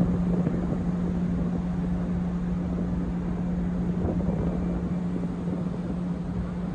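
Large car ferry under way, heard from its open deck: a steady low engine hum over a constant rushing noise of wind and the ship moving.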